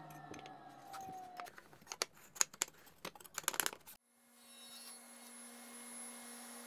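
Table saw motor coasting down with a falling whine, then a quick run of clicks and knocks as the rip fence is slid and the board is set against it. At about four seconds the sound switches abruptly to a steady low hum.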